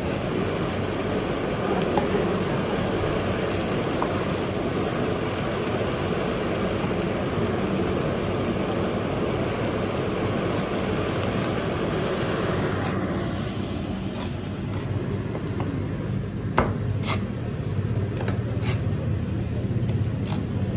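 A gas burner's open flame burning with a steady rush under skewered fish cubes. After about 13 s it falls away to a lower hum, and a few sharp knocks follow, like a knife striking a cutting board.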